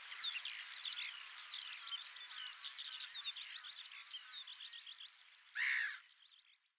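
A chorus of many frogs calling in quick, high chirps, slowly fading out. Near the end comes one short, louder noisy burst, and then the sound stops.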